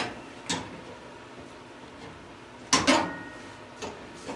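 Scattered metal clicks and clanks from old gas-stove aluminum tubing being cut and handled. The loudest is a sharp double clank just before three seconds that rings briefly; there are lighter ticks about half a second in and near the end.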